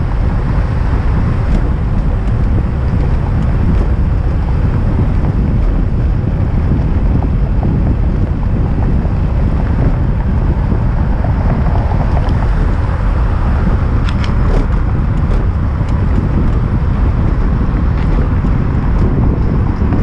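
Steady wind noise buffeting the microphone of a velomobile riding at speed, with low road rumble underneath and a few faint clicks about three-quarters of the way through.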